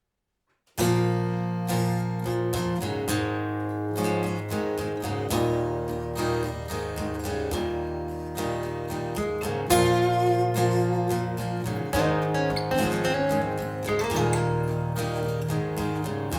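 A second of silence between tracks, then a slow guitar-led song intro begins, with sustained guitar notes over a steady bass line and no singing.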